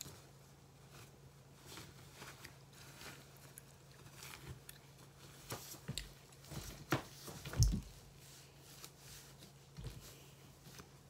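Faint rustling of clothing and scattered small knocks and thumps as someone gets dressed, over a steady low hum. The loudest thumps come about seven to eight seconds in.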